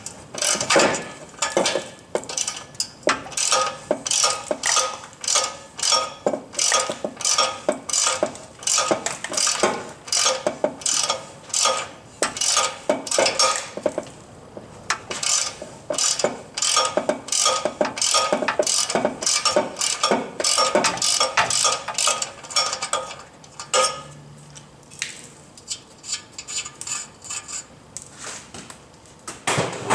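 Hand ratchet clicking in quick, regular strokes as it spins off an exhaust nut that has already been broken loose. The clicking breaks briefly about halfway through, and is fainter near the end.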